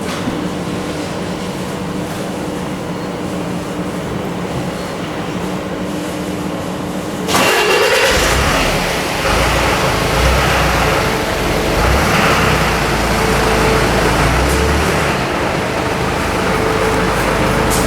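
Electric commuter train at a station platform: a steady hum, then about seven seconds in a sudden loud rumble as the train runs close by, holding steady to the end.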